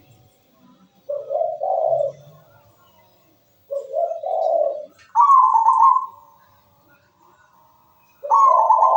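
Zebra dove (perkutut) singing: four short phrases of rolling coos a few seconds apart, the third higher and drawn out, the last starting near the end.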